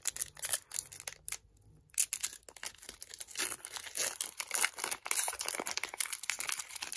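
Foil Pokémon booster pack wrapper being torn open and crinkled by hand: irregular crackling rustles, quieter for a moment about a second in, then dense and continuous from about two seconds in.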